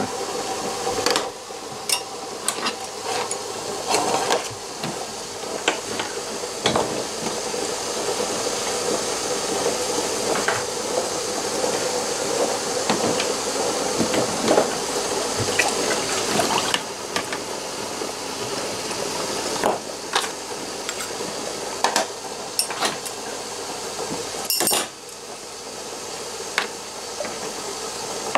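Metal pen parts and hand tools clinking and knocking now and then as they are handled, over a steady hiss.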